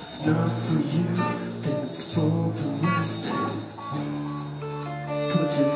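Live rock band playing a song with a steady beat: electric guitars, bass guitar and drum kit with cymbals.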